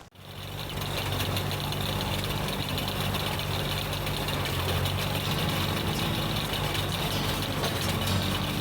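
Case 730 tractor engine running steadily, coming in over the first second.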